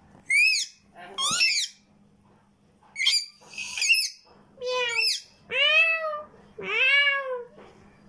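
Cockatiel calling: a string of short, high chirps, then from about the middle, longer drawn-out calls that rise and fall in pitch.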